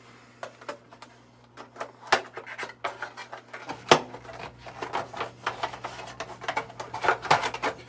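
Hands handling and opening a small cardboard box of makeup sponges: irregular scraping, rubbing and clicking of the cardboard, with one sharp click about four seconds in.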